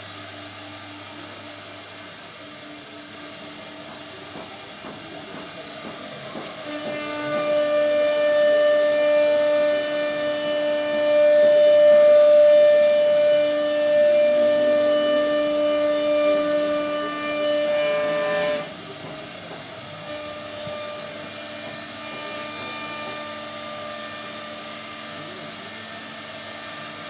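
CNC router spindle running with a steady whine over a hiss. About seven seconds in it grows louder with strong steady tones, then drops back suddenly about eighteen seconds in.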